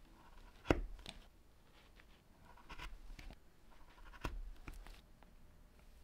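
Leather pieces and hand tools being handled on a cutting mat: faint rubbing and scraping, with one sharp knock a little under a second in and a few softer taps after it.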